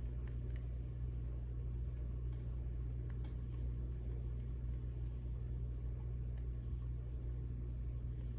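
Steady low machine hum at an even level, with a few faint clicks.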